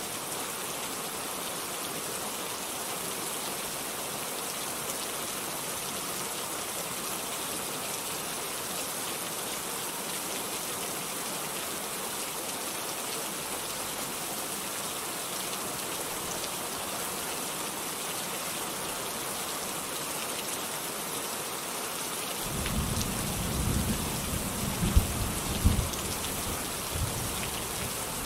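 Steady rain hissing on a surface, with a low rumble of thunder coming in near the end and a few sharper peaks within it.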